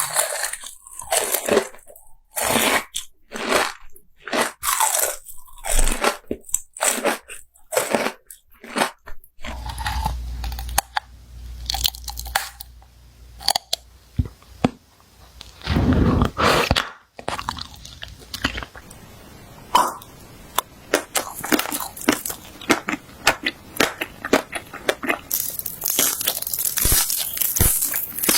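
Someone biting and chewing crisp, crunchy food close to the microphone. A series of separate loud crunchy bites is followed by fast, steady chewing crunches from about halfway through.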